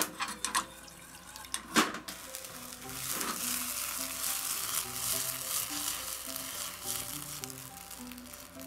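Gas stove igniter clicking a few times in the first two seconds, then the burner lights under a small aluminium pan and a steady hiss and sizzle rises about three seconds in. Soft background music runs underneath.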